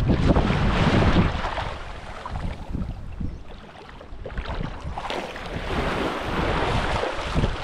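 Wind buffeting the microphone over the wash of small waves on a beach, surging loudest near the start and again about five seconds in.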